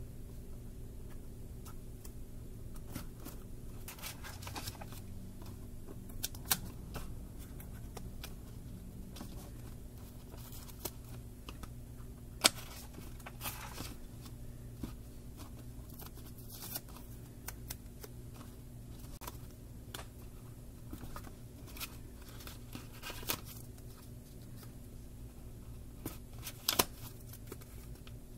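Paper and plastic handling noises from a spiral notebook and roll sticky notes: rustling, crinkling and scattered sharp clicks and taps, a few louder ones near the middle and near the end, over a steady low hum.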